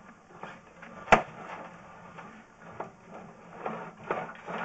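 Sewer inspection camera push cable being fed into the line, with irregular rattles and knocks and one sharp click about a second in, over a steady low hum.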